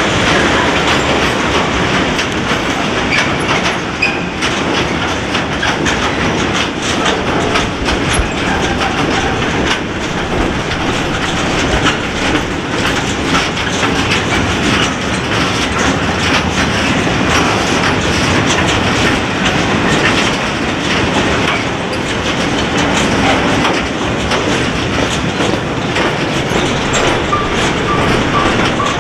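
Freight train of hooded steel-coil wagons rolling past at close range. A steady rumble with the dense clatter of wheels over the rails.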